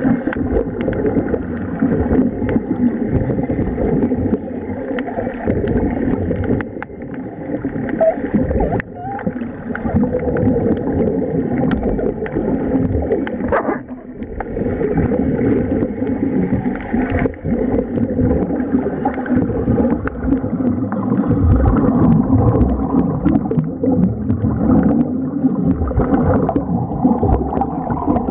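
Continuous underwater bubbling and rushing of air from a diver's bubble helmet and its air supply, heard underwater with uneven surges.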